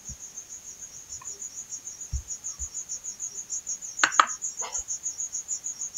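A cricket chirping in a steady, high-pitched, rapidly pulsing trill, with a few sharp clicks about four seconds in.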